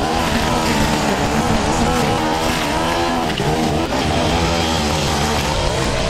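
Backpack petrol brush cutter running at working speed, its engine pitch wavering up and down as the throttle is worked and the line cuts through thick grass and weeds.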